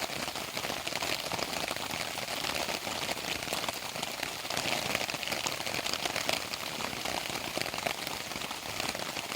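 Steady rain falling: a dense, even patter of many small drops.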